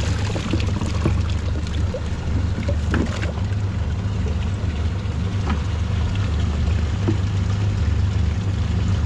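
Boat engine idling in a steady low rumble, with light splashing as live baitfish are tipped from a dip net into the boat's bait tank.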